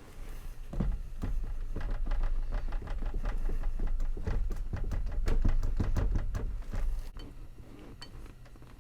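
BMW E28 steering wheel being yanked and rocked on its column, with rapid clunks and rattles and low thuds for about six seconds before it stops. The wheel will not slide off because the steering column lock is still engaged.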